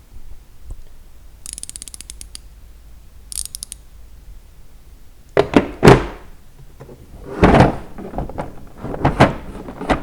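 A 72-tooth 3/8-inch drive ratchet clicking in two short, quick runs. Then, about halfway through, the plastic drawers of a tool storage case are slid and knocked shut several times. These knocks are the loudest sounds.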